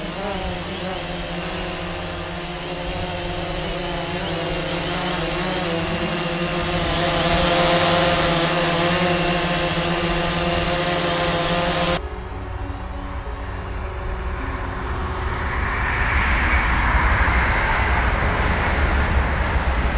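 DJI Phantom quadcopter drone hovering and coming in close, its propeller buzz growing louder. About twelve seconds in it cuts off sharply, and the rushing rumble of a passing passenger train swells.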